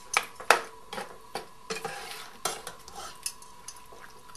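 Metal spoon stirring a thick, creamy curry sauce in a stainless steel saucepan, clinking and scraping against the pan's sides and bottom in irregular knocks, the loudest about half a second in.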